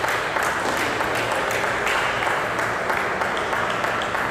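Audience applauding a won point in a table tennis match: steady, dense clapping.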